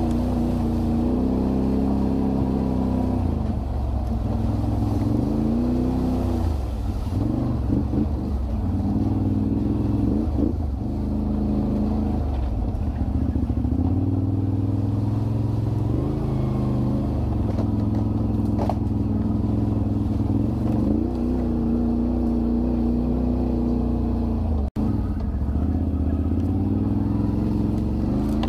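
ATV engine running close by, its pitch rising and falling again and again as the throttle is worked on a steep rocky climb. The sound cuts out for an instant near the end.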